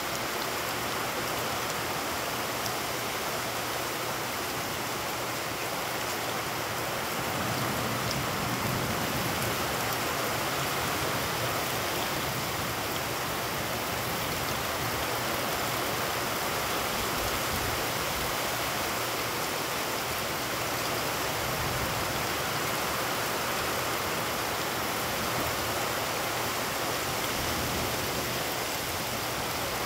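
Heavy rain pouring steadily onto puddled ground, a dense even hiss of rain that gets a little heavier about seven seconds in.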